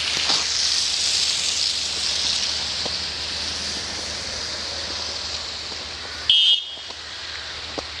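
Steady outdoor hiss with faint footsteps in fresh snow. About six seconds in comes a short, loud, high-pitched electronic beep.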